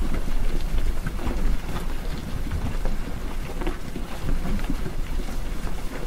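Wind rumbling on the microphone, with scattered crackles and crunches of cattle tearing at and chewing hay close by.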